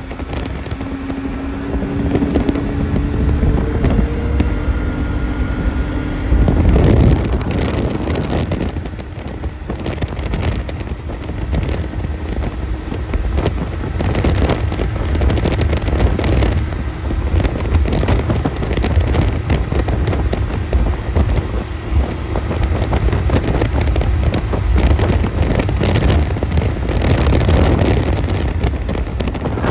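Turbocharged four-stroke snowmobile running at speed along a trail, its engine pitch climbing in the first few seconds, with heavy wind buffeting on the microphone.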